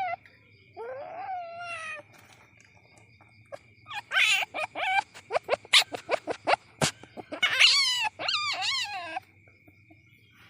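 Civet kitten calling: high squeals that slide down in pitch, in three bouts, with a run of quick sharp chirps in between.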